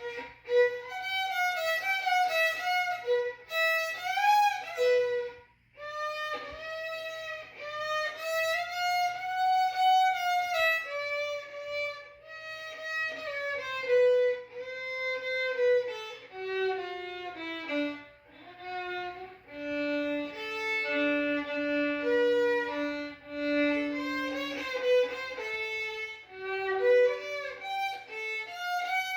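Solo violin playing a slow melody, one sustained note after another with small bends in pitch, with a brief break about five seconds in.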